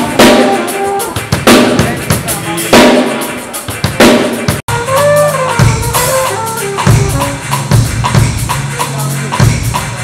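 Acoustic drum kit played live: kick and snare hits with loud cymbal crashes about every second and a half. After a sudden cut about halfway through, the drums carry on busier, with bass notes and other instruments sounding under them.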